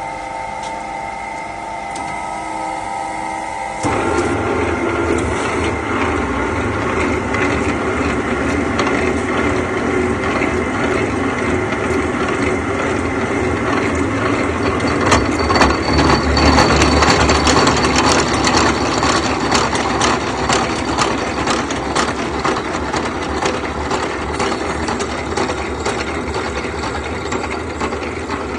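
Conveyor roller shaft-milling machine running: a steady motor whine for the first four seconds, then a sudden jump to a louder, rougher machining noise, with many scattered clicks through the second half.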